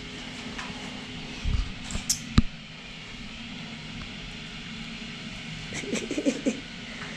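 Steady low room hum in a small office. About two seconds in comes a dull thump and then a sharp knock, likely on the desk, and near the end a short, low, wavering hum-like sound.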